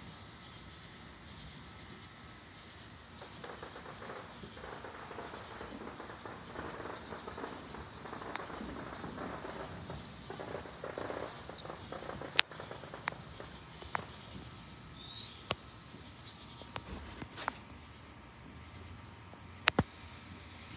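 Crickets chirping steadily in a high, pulsing trill. Several sharp pops cut in during the second half, two of them much louder than the rest.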